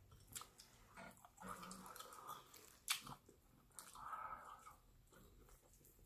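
Faint close-up chewing and mouth clicks of a person eating, with one sharper click about 3 seconds in.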